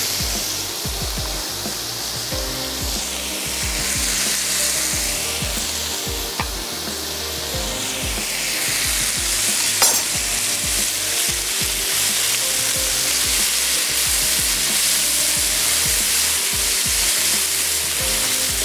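Chicken, garlic, spring onion and green bell pepper sizzling in hot oil in a frying pan while being stirred, with a sharp knock about ten seconds in.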